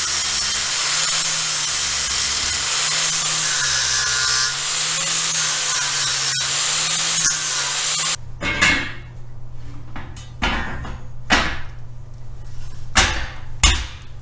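Angle grinder with a nearly worn-out flap disc grinding steel to shave high spots, so the axle truss sits flush on a Ford 10.5 axle; it runs steadily. The grinder stops abruptly about eight seconds in, and several sharp knocks follow.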